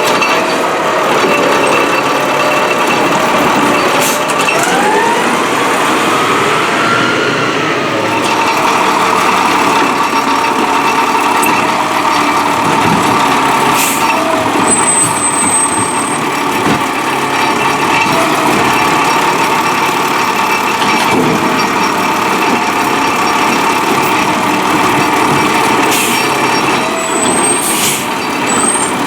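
Peterbilt 320 refuse truck with a New Way Rotopac packer body running steadily, engine and hydraulics together. A whine rises and falls once about five seconds in, and a few sharp knocks come through.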